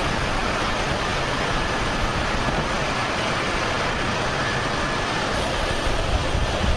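Steady engine and turbine noise of a cargo-loading operation: a constant rushing hiss with a faint high whine over it, as a Humvee drives up the ramp into a large military cargo jet.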